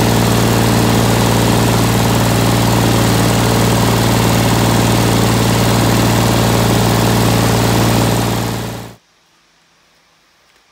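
1970s Ford 4000 tractor's three-cylinder diesel engine running steadily at a low idle-like speed, heard close to its vertical exhaust stack. The sound fades and cuts off about nine seconds in.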